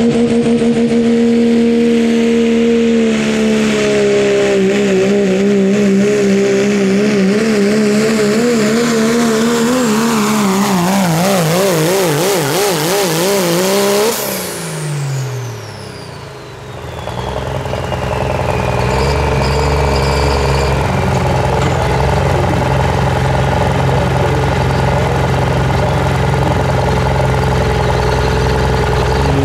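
Diesel Dodge Ram pulling truck at full throttle dragging a weight sled: the engine holds a high steady note, then its pitch wobbles rapidly up and down and sags as the sled's load pulls it down near the end of the run. About 14 seconds in the throttle comes off, the engine note falls away with a high turbo whistle winding down, and it settles into a lower steady rumble.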